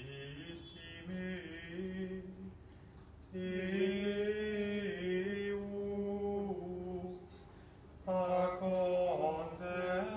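Gregorian plainchant sung by a man's voice on long, level held notes, in three phrases, the second and third louder than the first.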